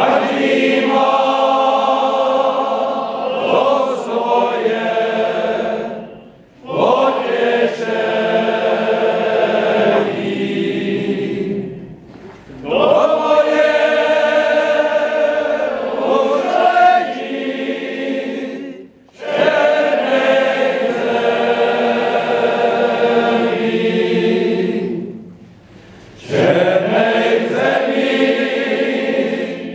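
A men's folk choir singing in long phrases of about six seconds each, with short pauses between them.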